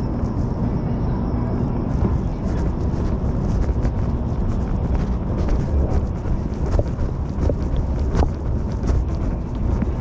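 Las Vegas Monorail train running, heard from inside the car: a steady low rumble and rushing noise with a few small clicks and knocks.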